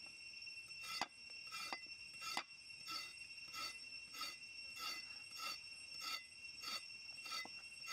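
Cleaver chopping a carrot on a wooden stump chopping block: a steady run of sharp knocks, about three every two seconds, starting about a second in, the first few the loudest. A steady high insect drone runs behind.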